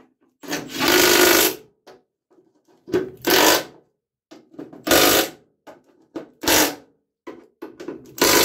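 Milwaukee M12 stubby cordless impact wrench hammering bolts down into a steel mower deck. It starts with one long burst of about a second, then comes several shorter bursts as the bolts are run tight in a cross pattern and pull through into place.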